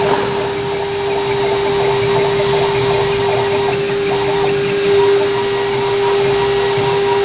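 A 1.5 kW water-cooled CNC router spindle running with a steady whine while its small bit mills a copper-clad circuit board, a rough cutting noise under the tone.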